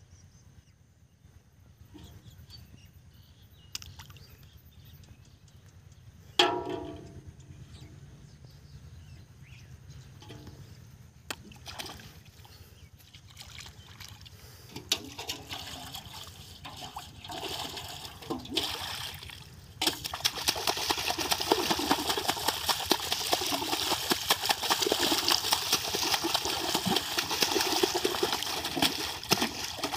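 Water splashing and sloshing as a metal basin is worked through shallow pond water. It is quiet with small scattered sloshes and one sharp knock about six seconds in, then turns into loud, continuous splashing about two-thirds of the way through.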